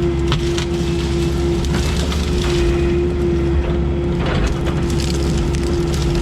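Heavy diesel machinery running steadily with a constant hydraulic whine, while brush and branches crack and snap under it several times.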